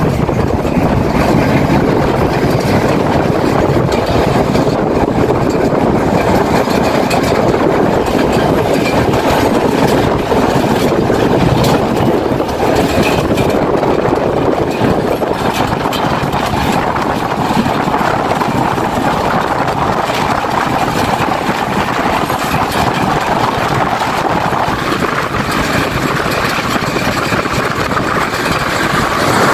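Passenger train running at speed: a steady, loud noise of wheels on the rails and rushing air, heard from an open carriage doorway.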